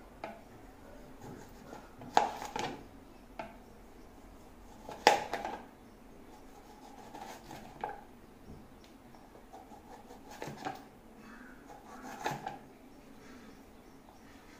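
Kitchen knife slicing tomatoes on a plastic chopping board: irregular knocks of the blade against the board every few seconds, the loudest about five seconds in, with soft cutting and handling sounds between.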